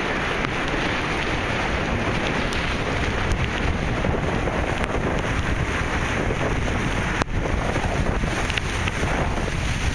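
Steady rain falling on a flooded street and its standing water, mixed with wind buffeting the microphone, with a few sharp ticks scattered through.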